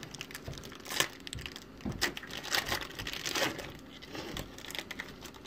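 Foil wrapper of a trading-card pack being torn open and crinkled in the hands, in irregular rustling bursts.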